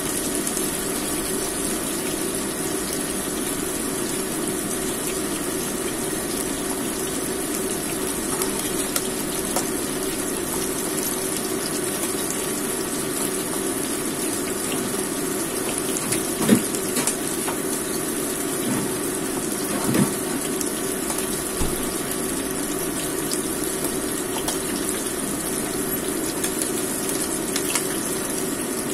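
A fish steak frying in oil in a wok: a steady sizzle, with two short knocks a little past halfway.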